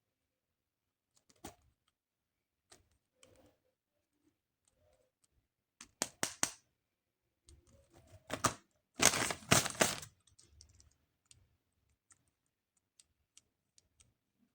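Plastic toy and packaging being handled: scattered light clicks and taps, a quick run of louder clicks about six seconds in, and a denser burst of plastic rustling and clicking at about nine to ten seconds.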